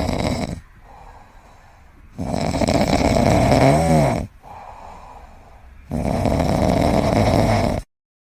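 A pet snoring loudly in long breaths, with quieter stretches between. One breath carries a brief wavering whistle-like tone. The sound cuts off abruptly near the end.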